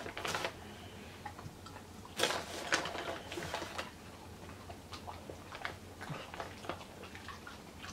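Dogs crunching small hard dog treats, heard as scattered faint clicks and crunches, a little louder about two to four seconds in.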